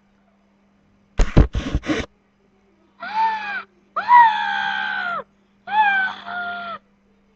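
A short cluster of loud thumps about a second in, then a girl screaming three times in high, drawn-out cries, each sagging slightly in pitch.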